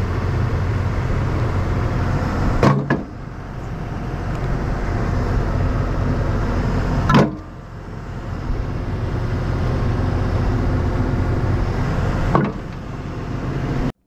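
Diesel engine of an ASV RT-40 compact track loader running steadily, with three sharp knocks, about one every four to five seconds, as broken concrete slabs are set into its steel bucket.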